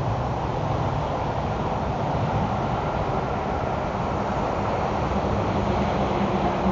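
A steady mechanical rumble with a low hum running under it.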